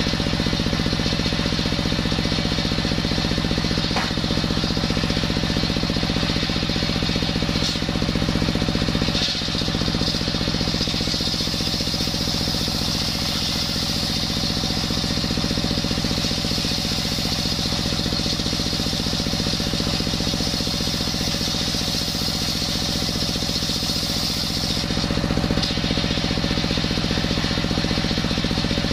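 Stationary single-cylinder diesel engine running steadily, belt-driving a large circular sawmill blade. From about a third of the way in until near the end, the blade rips lengthwise through a coconut-wood log, adding a high scream over the engine. The scream cuts off sharply as the cut finishes.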